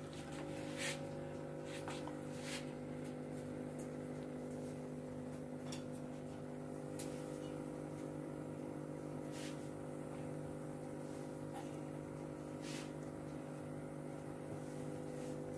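A steady low hum made of several even tones, with a few faint clicks spread through it.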